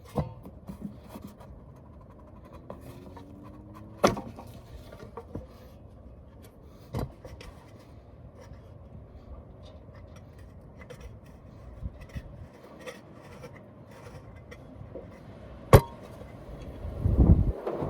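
Hand work with tools and small parts: scattered sharp clicks and knocks with rubbing and scraping between them, a sharp knock near the end, then a short heavier thud.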